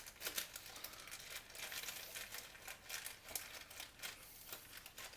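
Crinkling of a small plastic packet of hot-stapler welding staples being opened and rummaged through to pick one out, with faint irregular light clicks and crackles throughout.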